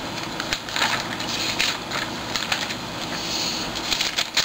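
Thin Bible pages being leafed through by hand, rustling and crackling in several short flurries.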